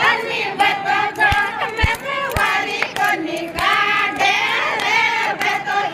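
Group of women singing a Rajasthani folk song together, many voices overlapping, with hand claps and three dull thumps in the first half.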